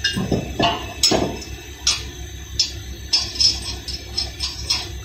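Metal clinking and knocking as a brake disc is handled and seated on the wheel hub: about ten sharp, irregular clinks, the heaviest in the first second.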